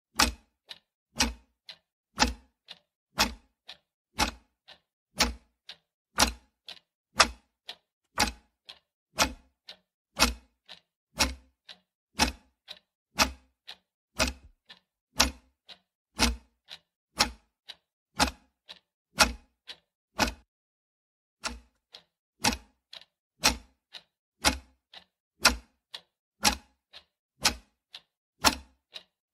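Clock ticking sound effect for a countdown timer, one sharp tick about every second. One tick drops out about twenty seconds in.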